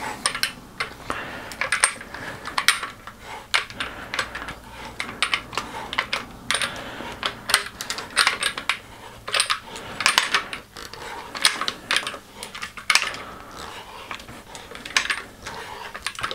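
Pipe cutter being turned around an aluminium fork steerer tube, its cutting wheel biting into the alloy. It makes a long series of irregular sharp metallic clicks and scrapes, one or two a second.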